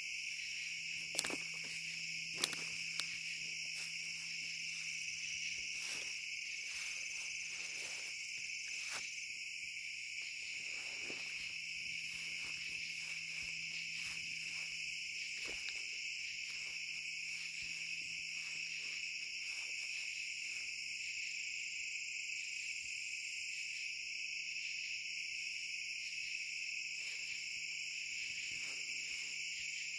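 Steady chorus of night insects such as crickets, continuous throughout, with three sharp clicks in the first three seconds.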